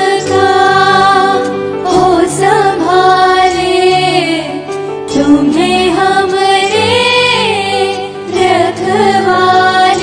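Music: a woman singing a Hindu devotional aarti song, with long gliding sung phrases over a steady instrumental accompaniment.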